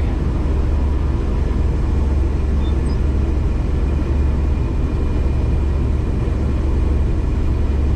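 Case IH 7130 Axial-Flow combine running steadily while harvesting corn, heard from inside the cab: an even, loud, low machine drone with no changes.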